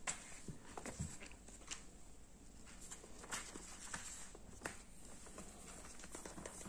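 Irregular soft taps and paper rustles: book pages being flipped while a Persian kitten swats and bites at them, its paws pattering on a wooden floor.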